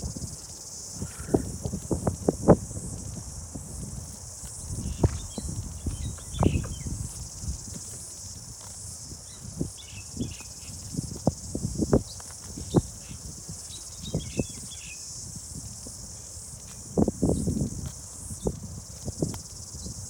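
Cicadas buzzing in a steady, high-pitched chorus, over a horse cropping grass: irregular tearing snaps and chewing crunches, with a louder run of them near the end.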